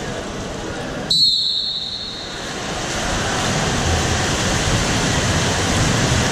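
A referee's whistle blown once, a short shrill blast about a second in, over the steady noise of an indoor pool hall, which grows louder a couple of seconds later.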